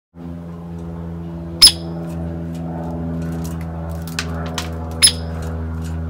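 A woodpecker at a seed feeder gives two loud, sharp, high call notes, about three and a half seconds apart, with a few faint ticks between them. A steady low hum runs underneath.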